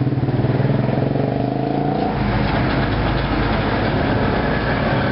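A motor vehicle's engine running steadily close by, its even low tone fading out about two seconds in and leaving steady street noise.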